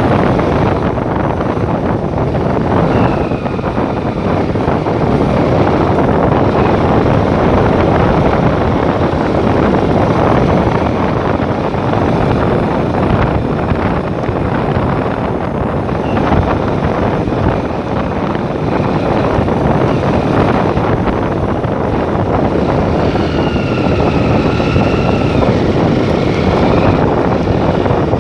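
A vehicle travelling along a road: steady engine and road noise, with wind buffeting the microphone.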